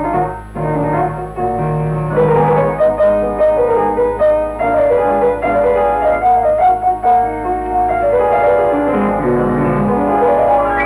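Film score music led by piano, playing a run of notes and chords. A steady low hum runs beneath it.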